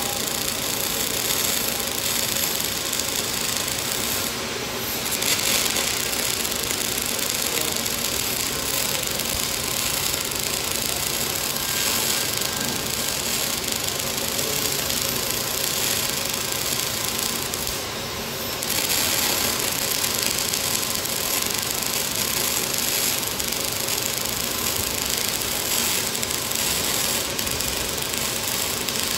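Robotic MIG welding arc running steadily, with two short dips in the sound about four and eighteen seconds in.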